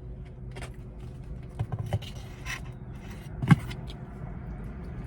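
Handling noises while eating: scattered short clicks and scrapes, with one sharp knock about three and a half seconds in, over a steady low hum.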